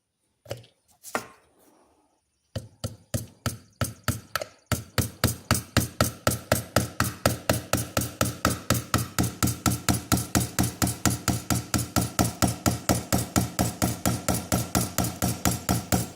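Light hammer taps driving the center pin through a pocket knife's frame: two separate knocks, then from about two and a half seconds in a fast, even run of gentle taps at about five a second with a slight metallic ring.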